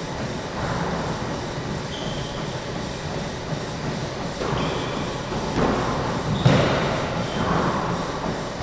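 Squash-court play: squash shoes squeak briefly on the hardwood floor several times, and a squash ball hits with a single sharp smack about six and a half seconds in. A steady background hum runs underneath.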